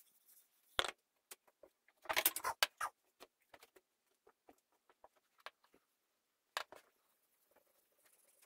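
Hands brushing sawdust and shifting a wooden cutting board on the worktable: scattered light scrapes and knocks, with a louder patch of scuffing about two seconds in and a sharp knock near the middle.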